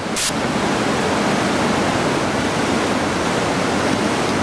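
Whitewater rushing steadily and loudly through a steep river rapid and waterfall drop.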